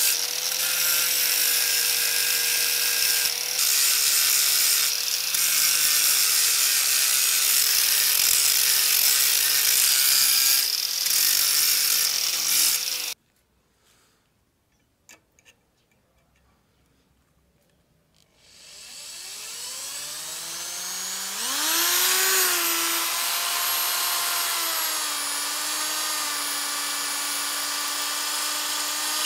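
Angle grinder with a thin disc grinding the end of a steel rebar: a steady whine over a loud grinding hiss, easing briefly a few times, then cutting off suddenly about thirteen seconds in. After a few seconds of near silence with a couple of small clicks, an electric drill spins up with a rising whine and runs steadily, its pitch settling a little lower, as it drills a small hole in the end of a steel rebar.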